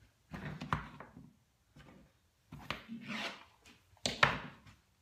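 Handling noises: three short spells of knocks, clicks and rubbing, as objects are picked up, moved and set down.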